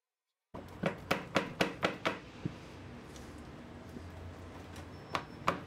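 Sharp knocks of the filled plastic pipe soap molds being handled on a stone countertop: a quick run of about six, some four a second, starting about half a second in, then two more near the end.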